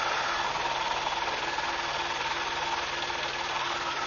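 Tour helicopter's engine and rotor noise, a steady drone with a few constant tones running through it.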